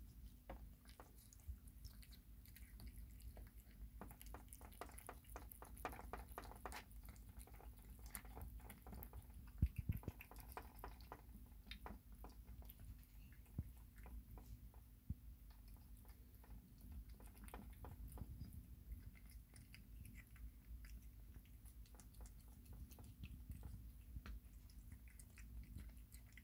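A kitten eating wet cat food from a plastic bowl: faint, rapid wet chewing and licking clicks that go on throughout, with one louder click about ten seconds in.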